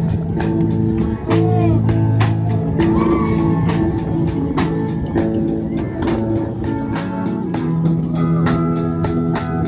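Loud instrumental music: guitar and bass over a steady drum beat, with no singing.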